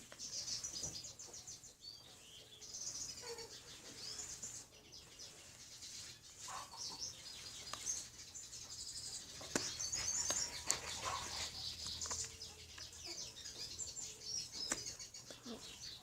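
Shaving-foam slime being stirred and kneaded by hand, giving wet, sticky crackling and small popping sounds with a few sharper clicks, as the slime firms up with the activator.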